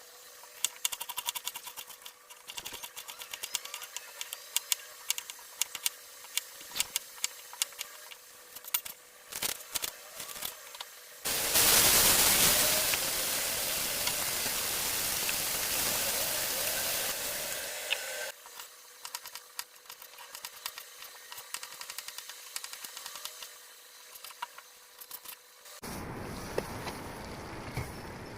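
Kitchen food-preparation sounds: a run of sharp clicks and knocks from utensils over a faint steady hum, then a loud even hiss for about seven seconds from about eleven seconds in, then more clicks and a softer hiss near the end.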